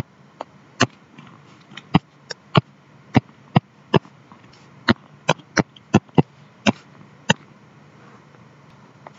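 Sharp, irregular clicks, two or three a second at the busiest, from the input device used to pick a pen colour and draw circuit lines on a computer. There is a quieter gap near the end.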